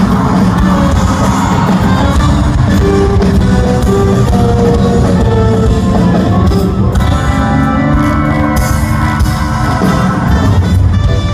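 A live band playing loud amplified music through the PA, with electric guitar and drums, heard from the audience of a large hall.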